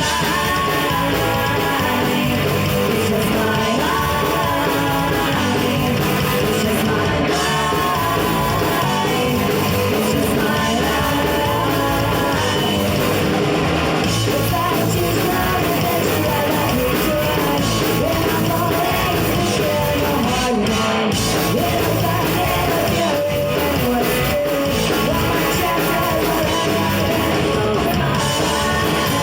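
Live punk rock band playing a song at full volume: electric guitars, bass and drums with a sung lead vocal, steady and loud throughout.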